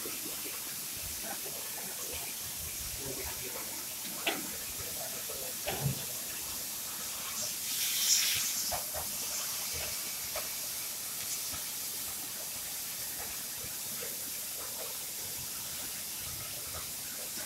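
CNC profile cutting machine running with a steady hiss. There are a couple of brief knocks around the fourth and sixth seconds, and the hiss swells louder for about a second near the middle.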